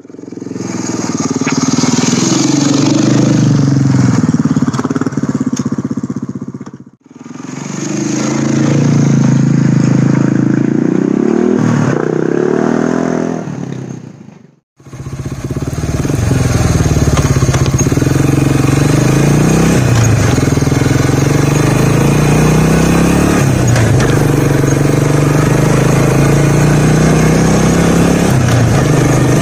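1986 Honda FourTrax 350 ATV's single-cylinder four-stroke engine running and revving, its pitch climbing and dropping again and again as the machine accelerates and shifts while riding. The sound fades out and back in twice in the first half, then runs on without a break.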